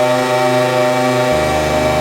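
Electronic drone from a Rucci Maximal Drone run through an EarthQuaker Devices Data Corrupter and an Afterneath reverb: a steady, buzzy held tone rich in overtones. Just over a second in, it jumps abruptly to a new pitch with a deeper low note underneath.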